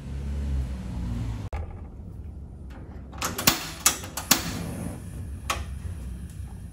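A gas stove burner being lit under a saucepan of water: a low rumble for the first second and a half, then a cluster of sharp ignition clicks a little past the middle and one more near the end, with the lit flame giving a low steady hum.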